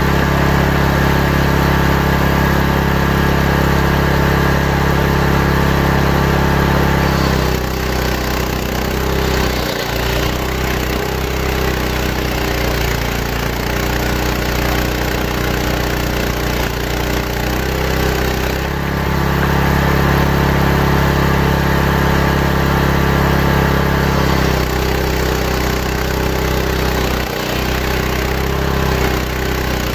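A large circular-blade table saw ripping santol wood, its engine drone running steadily while the blade cuts along the plank. The tone of the drone changes about a quarter of the way in and again later as the cut loads and unloads the saw.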